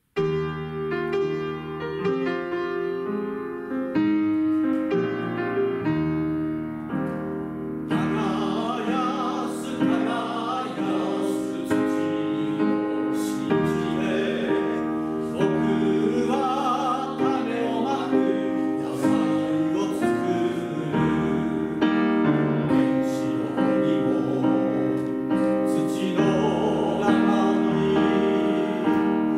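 Piano playing a short introduction, then a small group of men's voices joins in about eight seconds in, singing a song with piano accompaniment.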